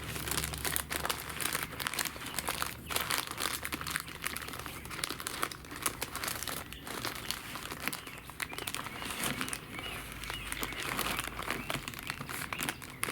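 Butcher paper crinkling and rustling with many irregular crackles as it is folded around a tri-tip roast.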